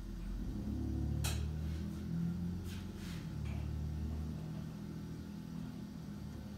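A car passing on the street below: a low rumble that swells in the first second or two and fades away. Three short, sharp clicks sound over it, one a little over a second in and two close together near the middle.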